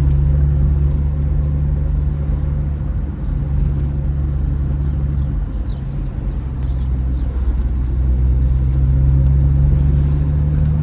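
Car engine and road noise heard from inside a moving car: a steady low drone that eases off about three seconds in and builds again.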